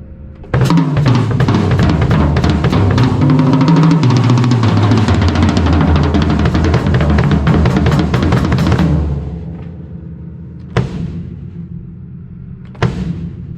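Late-1990s Premier Genista drum kit: a fast roll of rapid strokes lasting about eight seconds, its pitch stepping down as it moves around the toms, then ringing out. Two single strokes follow near the end.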